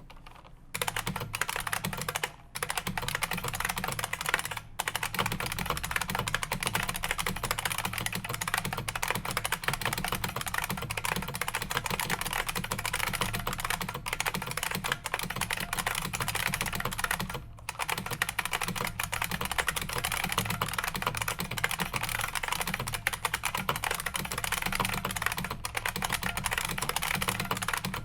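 IBM Model M keyboard (third generation) with buckling-spring switches being typed on fast and without let-up, a dense stream of key clacks that starts under a second in, with brief pauses about two and a half, four and a half and seventeen and a half seconds in.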